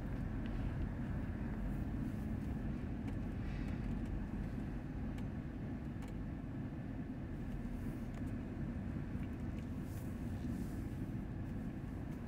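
Steady low rumble of vehicle engines and tyres moving slowly along a street: a tiller ladder fire truck driving just ahead of the following vehicle, with a faint hum under it and a few light clicks.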